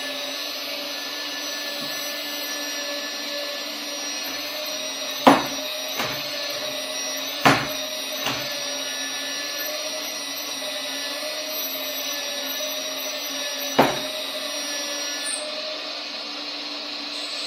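Hydraulic pump of a 1:14.5 scale RC Hidromek H4 500 excavator whining steadily as its demolition crusher jaws close on a porcelain tea cup. There is a sharp crack about five seconds in, another about two seconds later, and a last one near the end, with fainter clicks after the first two: the porcelain cracking under the jaws.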